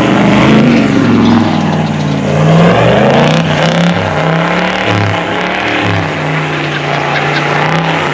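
Four-wheel-drive's engine revving hard under load, its pitch rising and falling over the first few seconds, then holding steadier.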